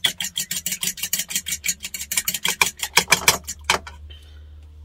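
Fork beating an egg into cornbread mix in a mixing bowl, its tines clicking against the bowl in quick, even strokes, about six a second. The clicking stops a little before the end.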